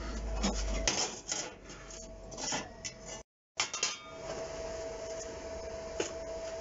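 Curved scraps of gas-bottle sheet steel clanking and scraping as they are handled and set down on a metal workbench: several separate clanks over a faint steady hum. The sound cuts out briefly about halfway.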